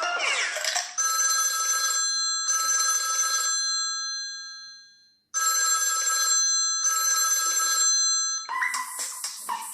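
Samsung Galaxy Ace ringtone: a bell-like double ring, played twice with a pause in which it fades out. Just before it, another ringtone cuts off, and near the end a busier, rhythmic ringtone begins.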